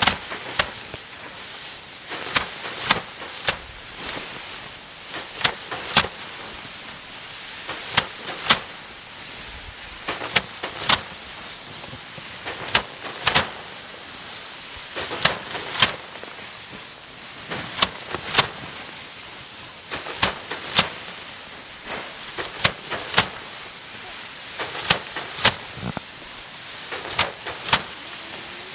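Manual rice harvesting work: sharp strikes of rice stalks being worked by hand, in clusters of two to four about every two to three seconds, in a steady rhythm.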